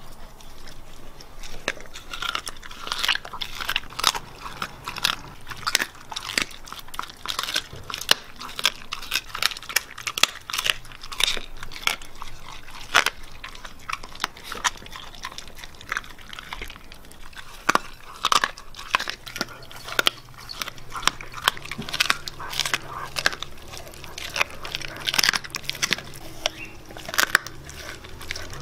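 Siberian Husky biting and chewing a raw chicken piece on the bone, crunching it between its teeth in a quick, irregular run of sharp cracks.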